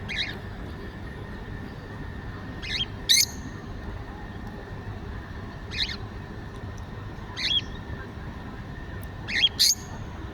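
Small birds chirping: about seven short, high calls, some in quick pairs, a second or two apart, over a steady low background hum.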